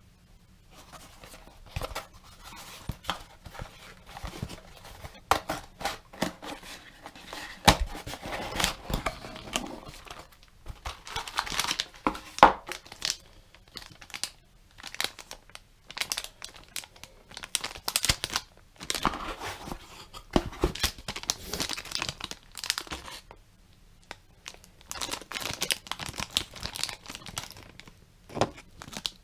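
Packaging being opened and handled by hand: irregular crinkling, rustling and tearing, with sharp crackles, in a small room.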